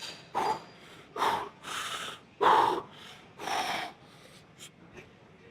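A man breathing hard and heavily, winded from heavy leg-press work: about five loud gasping breaths in the first four seconds, then quieter.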